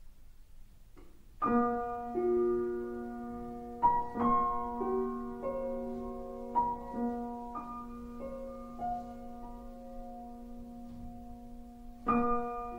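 Slow piano background music with held notes and chords over a steady low bass note. It starts about a second and a half in, and a new chord is struck near the end.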